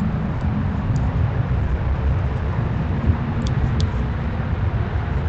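Steady low outdoor rumble, with two brief high chirps about three and a half seconds in.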